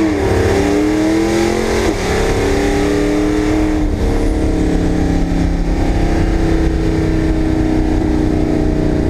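1965 Ford Mustang's twin-turbocharged 393 small-block V8, heard from inside the cabin, pulling hard with its note climbing. The pitch drops sharply at a gear change about two seconds in, climbs again, and from about four seconds in rises only slowly.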